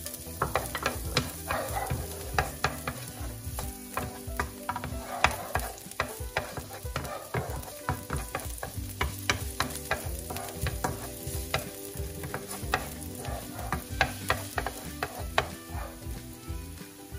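Minced garlic sizzling in a little hot oil in a nonstick frying pan, stirred with a wooden spatula that knocks and scrapes against the pan in repeated irregular clicks.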